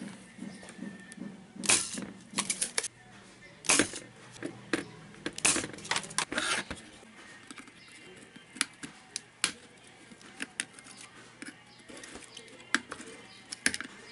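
Irregular small metallic clicks, taps and scrapes of a soldering iron and tweezers working the legs of rectifier diodes as they are desoldered from a power-supply circuit board. The loudest, densest run of clicks comes in the first seven seconds, with sparser light ticks after.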